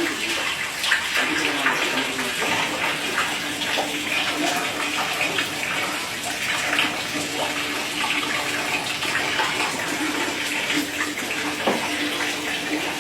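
Heavy rain falling steadily: a dense, even hiss of drops with scattered sharper drop ticks.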